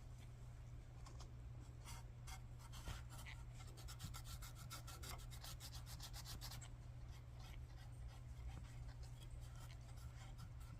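Faint scrubbing on the grimy radio chassis: a cleaning cloth or swab rubbing in short scratchy strokes. There is a fast run of strokes from about four to seven seconds in.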